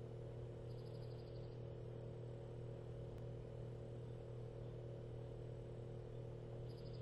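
A steady low hum runs throughout. Twice, about a second in and again near the end, a brief run of faint, rapid high ticks sounds over it.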